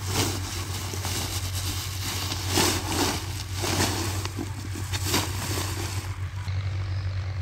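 Woven plastic sacks rustling and crinkling in several short bursts as they are opened and handled, over the steady low drone of a tractor engine running.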